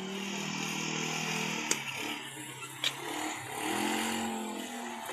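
An engine running, its pitch sagging and then rising again, with two sharp clicks about two and three seconds in.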